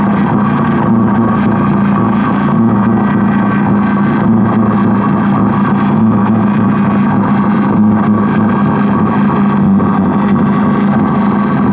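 Electronic noise improvisation from a drone synth setup: a thick, steady low drone with a grainy hiss over it, unbroken and without a beat.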